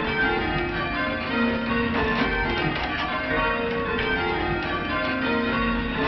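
Church bells being change rung by hand from ropes: the bells strike one after another in a steady, unbroken sequence, their tones overlapping as each rings on.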